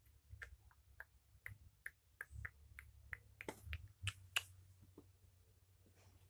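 A run of light, sharp clicks, about three a second, with the loudest couple near four seconds in, then tailing off.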